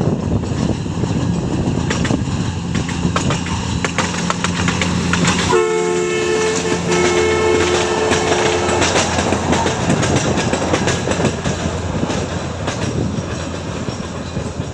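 Ride train running on the rails with its engine humming, sounding two blasts of a two-note horn about six seconds in, the second longer than the first.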